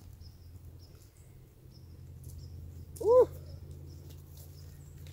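Faint, short high chirps of small birds repeat over a steady low rumble. About three seconds in, a man gives one short, loud whoop that rises and falls in pitch.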